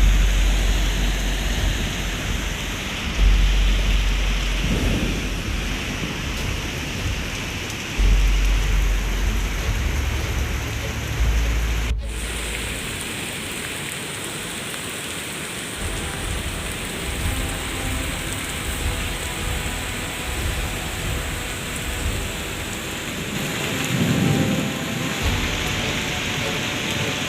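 Heavy rain pouring down steadily, with deep low rumbling through the first half and again near the end.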